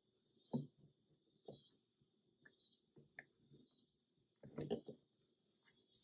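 Quiet handling of a chainsaw's housing and handle on a workbench: a few soft knocks and clicks, the loudest about half a second in and again near the five-second mark, over a steady high trilling in the background.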